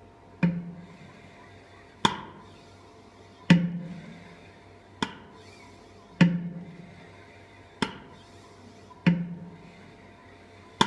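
Hand-pumped 3-litre calibration syringe worked through a metabolic cart's flow meter for calibration, its plunger knocking against the end stops about every one and a half seconds. Heavier and lighter knocks alternate, one for each end of the stroke, over a steady low hum.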